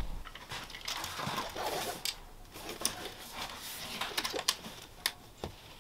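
Handling noise: fabric rustling against the canvas tent wall as the stove jack is held up to it, with scattered light clicks and knocks.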